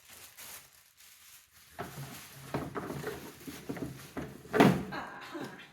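Plastic parts of a baby dining chair being handled: a run of knocks, rubbing and rustling, with a louder knock about four and a half seconds in.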